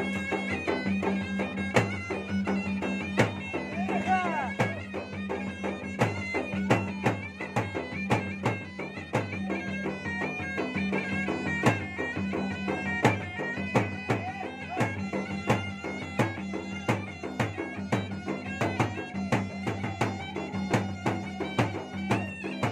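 Makassarese gendang ensemble playing: two barrel drums beaten in a fast, busy rhythm, one by hand and one with a stick, under a continuous reedy melody from a pui-pui, a double-reed pipe.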